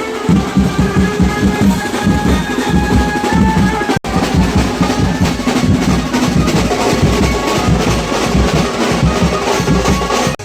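Loud festival procession band: rapid heavy drumbeats under a held melody line. The sound breaks off for an instant about four seconds in.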